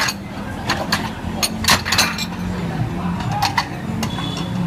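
Bowls and utensils clinking and clattering, a run of sharp knocks scattered over a few seconds, over a steady low hum.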